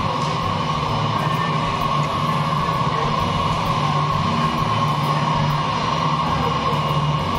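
Steady whine of a taxiing Airbus A320-family airliner's jet engines, mixed with background lounge music.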